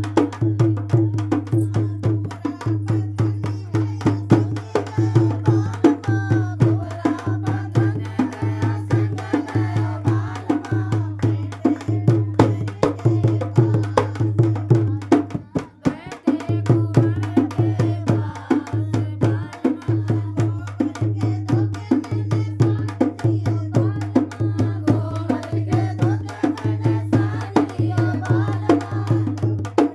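Music with fast, dense percussion over a pulsing bass and a wavering melody line above. The music drops out briefly about halfway through.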